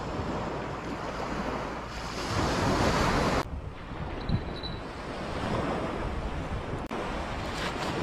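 Small waves washing onto a pebble beach, with wind on the microphone. A louder rush of surf builds about two seconds in and cuts off suddenly about halfway through.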